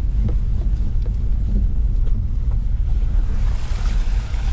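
Pickup truck driving a rough, wet dirt road, heard from inside the cab: a steady low rumble with a few light knocks, and a hiss that rises about three seconds in.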